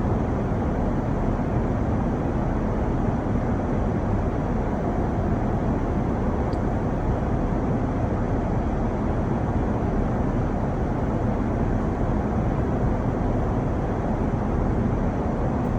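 Steady, unchanging cabin noise inside an Airbus A350: an even rushing rumble with most of its weight in the low end.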